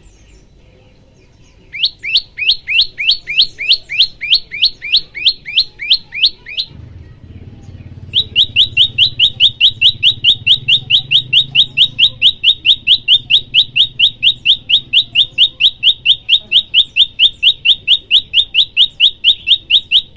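Prenjak lumut song: long runs of identical sharp chips, each sweeping up in pitch, repeated about four to five times a second. A first run stops about 6.5 seconds in, and a longer, faster one starts about 8 seconds in.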